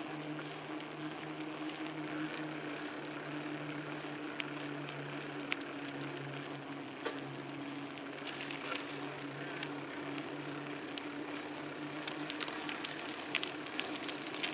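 Bicycle rolling along a paved trail: a steady tyre hum over road and wind noise, with a few light rattles and clicks near the end.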